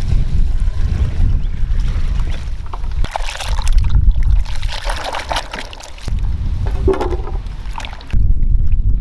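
Water sloshing and trickling over a heavy, uneven low rumble, with abrupt shifts in the sound about three, six and eight seconds in.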